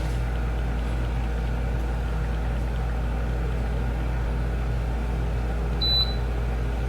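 Steady low electrical or motor hum of a running appliance, with one short, high electronic beep about six seconds in.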